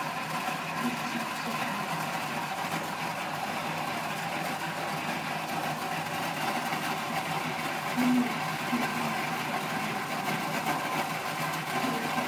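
Swivel bar-stool seat turning steadily under a small dog walking on it, a continuous mechanical whirr.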